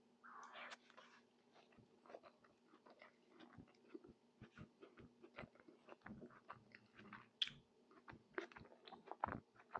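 Close-miked mouth sounds of someone eating tajine: soft, irregular chewing clicks and wet smacks, with a few sharper ones in the second half. A soft breath comes right at the start.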